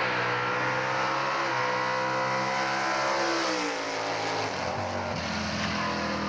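Hemi V8 drag car under full throttle on a drag strip, its engine note held high, then dropping sharply as it passes about three and a half seconds in. A lower, steadier engine note takes over near the end.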